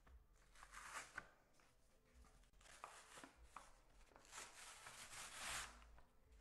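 Paper facing being peeled off corrugated cardboard: a few faint tearing rasps, the longest about four seconds in.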